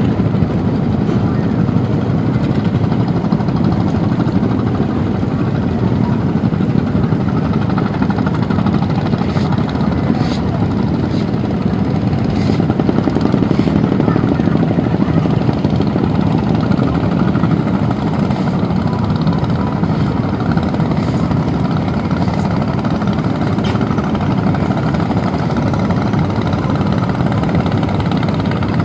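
Wooden fishing boats' engines running steadily, a continuous low drone.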